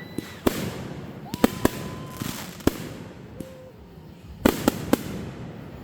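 Fireworks going off: a string of sharp bangs, with a quick cluster about one and a half seconds in and another near the end, crackling between them, and a few short whistling tones.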